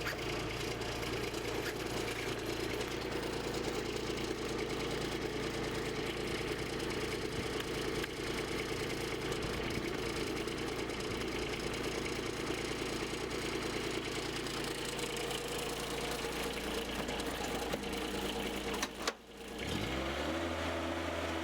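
Diesel engine of a small tracked mini loader running steadily while it works a rope highline to drag a log. Near the end the sound drops out briefly, then comes back with a different note that rises and holds steady.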